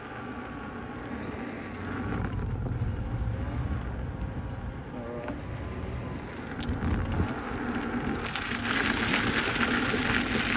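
Inmotion V12 electric unicycle being ridden: a low rumble of the tyre rolling on asphalt, with a faint motor whine that rises and falls as the speed changes. From about eight seconds in, the knobby tyre moves onto gravel and a louder crunching crackle takes over.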